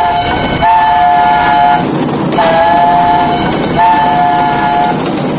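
Train horn sounding a two-note chord in a series of blasts about a second long with short gaps between, over the steady rumbling noise of a moving train.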